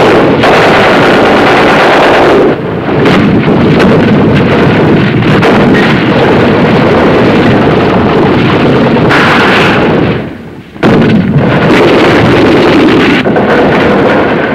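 Continuous battle noise of shell bursts and gunfire, loud and dense with hardly a break, dropping away for a moment about ten and a half seconds in.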